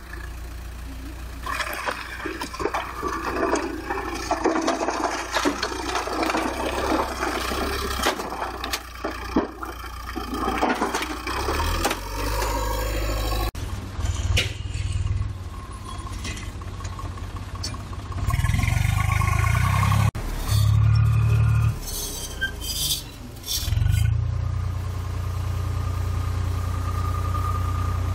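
Broken rocks clattering and scraping as a backhoe loader's bucket tips them into a steel truck body. In the second half a heavy engine runs, growing louder in a few stretches.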